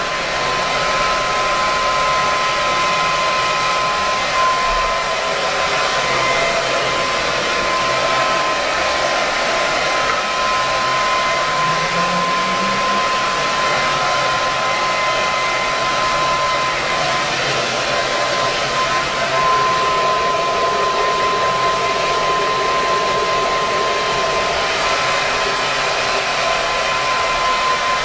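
Blow dryer running steadily, blowing air over a dog's wet coat: an even rushing hiss with a steady whine on top.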